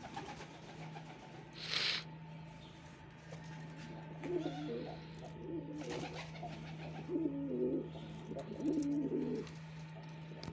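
Pigeon cooing, a run of several wavering coos from about four seconds in, fading out before the end. A brief rustling hiss comes near two seconds in, with a steady low hum underneath throughout.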